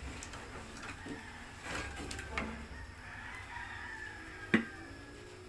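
A rooster crows in the background: one long call that rises and falls, in the second half. A single sharp knock, the loudest sound, comes about four and a half seconds in.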